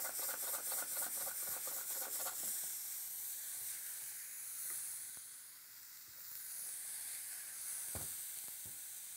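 Diced fresh tomatoes and onions sizzling in olive oil in a stainless steel frying pan while a silicone spatula stirs them with quick, even strokes for the first two seconds or so. The hiss of the frying carries on, with a short knock near the end.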